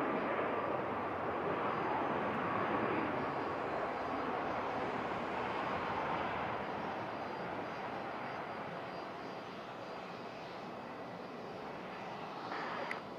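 Jet airliner engine noise, a steady rushing that is loudest in the first few seconds and then slowly fades.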